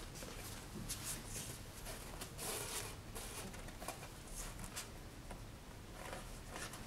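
Heavy black Stonehenge paper rustling and brushing in short, scattered rushes as folded signatures are opened and hand-sewn with linen thread.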